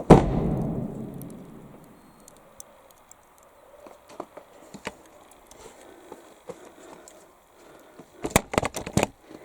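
A motorhome's habitation door slammed shut under a stone viaduct arch: one sharp bang whose echo rings on and dies away over about two seconds, sounding like a shotgun. A quick clatter of several knocks comes near the end.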